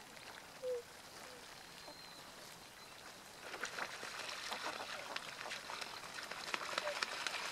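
Tundra swan giving one short call about a second in, with a fainter call just after. From about halfway, a dense crackling patter of small clicks builds up.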